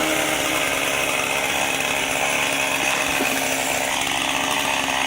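Stihl chainsaw running steadily at high speed, cutting up a fallen tree.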